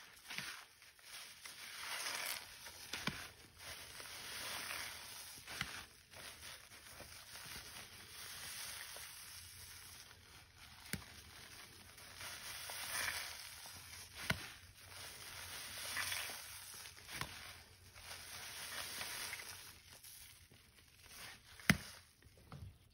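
Soapy sponge squeezed by hand again and again, the suds and water squishing out in swells every couple of seconds. A few sharp clicks come between, the loudest near the end.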